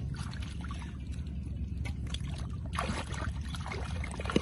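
Hands digging and scooping through wet mud and water in a small puddle hole, with short squelching, sloshing scrapes and a louder burst about three seconds in, over a steady low rumble.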